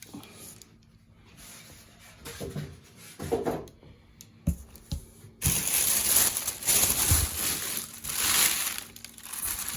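Cardboard box and packing material being handled: rustling and scraping with a few soft knocks, much louder in the second half.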